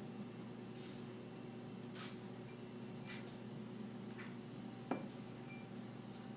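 Faint, sparse handling sounds over a steady low hum: a few soft taps and rustles and one sharper click about five seconds in, as Alka-Seltzer tablets are dropped through the neck of a plastic bottle holding oil and water.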